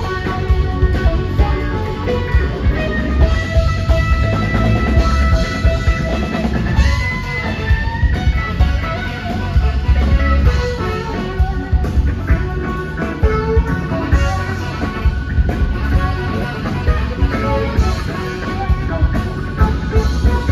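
Live rock band playing an instrumental passage: electric guitar over bass and a steady drum beat, with held notes sustained above them.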